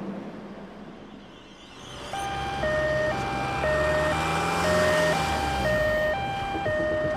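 Ambulance's two-tone siren, alternating between a high and a low note about every half second. It starts about two seconds in and grows louder, over the low rumble of the arriving vehicle.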